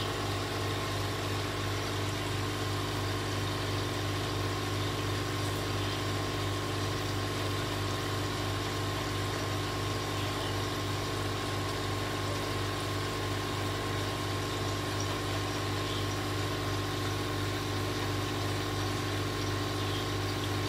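Aquarium pump humming steadily, a low even hum that does not change.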